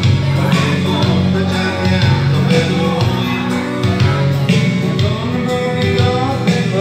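A man singing karaoke into a handheld microphone over a recorded backing track, amplified through a PA speaker.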